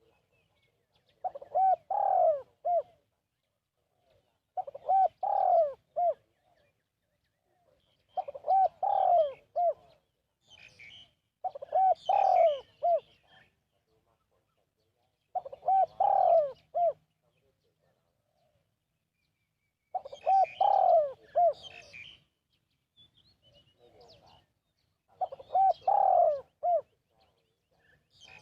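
Spotted dove cooing: seven short phrases of several low coos each, repeated every few seconds. A smaller bird chirps faintly at a higher pitch between some of the phrases.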